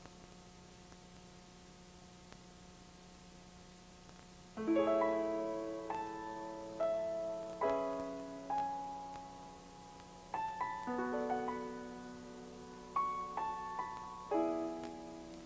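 Background piano music: after a quiet pause with a faint steady hum, slow chords begin about four and a half seconds in, each struck and left to fade.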